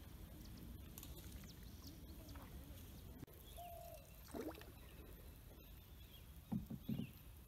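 Quiet river ambience heard from a dugout canoe on calm water: faint water trickle, a few short bird calls, and a couple of dull knocks near the end.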